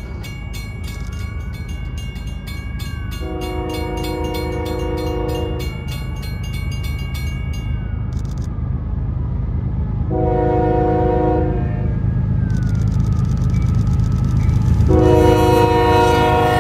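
Union Pacific freight's diesel locomotives sounding the horn for a grade crossing: a long blast about three seconds in, a shorter one about ten seconds in, and another long one starting near the end. Under it the crossing bell dings rapidly, stops about eight seconds in and starts again about four seconds later, while a low engine rumble grows louder as the train approaches.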